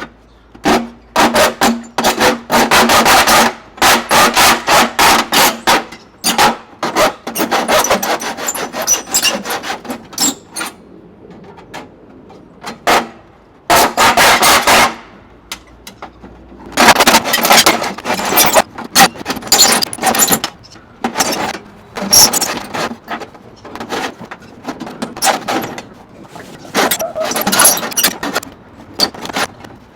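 A metal rain-gutter downspout being cut by hand in quick, rasping strokes, in runs of a few seconds with short pauses between.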